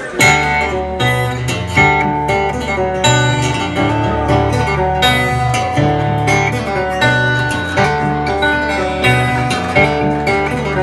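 Acoustic guitar instrumental played live: plucked melody notes over a steady low droning bass, starting with a strong plucked attack just after the start, with accented notes about once a second.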